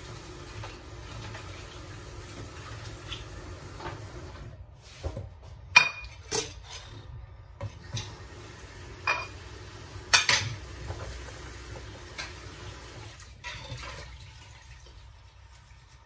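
Dishes and cutlery clinking and clattering as they are handled in a plastic dish rack at the kitchen sink: a steady hiss at first, then a series of sharp clinks, some ringing briefly, about one every second. The sound dies down near the end.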